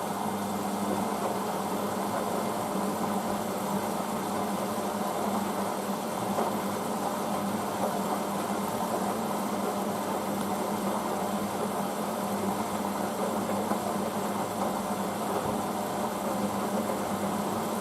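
Hoover DYN9144D3X washing machine running its first rinse cycle, a steady, even hum and rush with no change.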